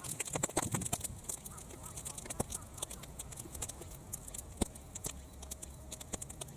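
Sun-dried weeds crackling as they burn in an open fire: a dense, irregular scatter of sharp snaps and pops over a soft hiss.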